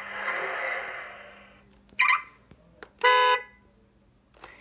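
Electronic sound effects from a Transformers Bumblebee toy fist's small speaker: a hissing blast that fades over about a second and a half, then two short, buzzy horn-like tones about a second apart.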